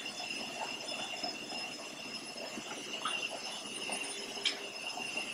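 Faint, scattered taps and clinks of dishes being handled in a kitchen sink, with one sharper click near the end, over steady camcorder tape hiss and a thin high whine.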